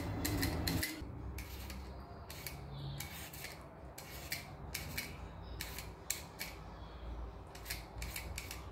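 Potato being peeled by hand: short, light scraping strokes of the blade across the skin, about two a second with an uneven rhythm.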